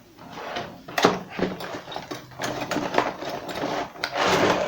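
Packaging of a TV antenna kit being opened and handled: irregular rustling with sharp clicks and knocks, loudest for a moment near the end.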